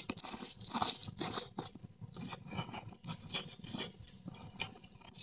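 A person eating spicy instant noodles close to the microphone: a short slurp about a second in, then soft, wet chewing with many small mouth clicks.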